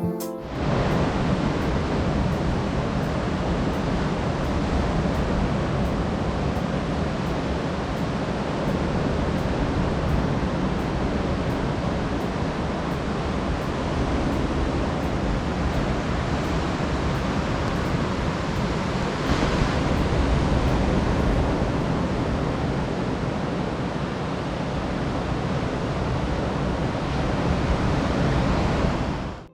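Steady rush of ocean surf, with some wind on the microphone; it cuts off abruptly near the end.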